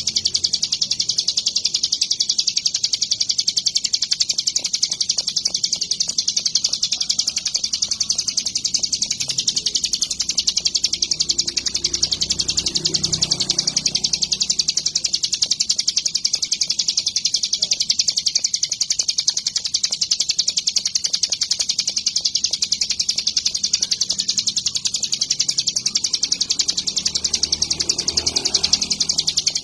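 Ciblek gunung (hill prinia) singing without pause: a high-pitched, very fast, even chatter that goes on steadily throughout.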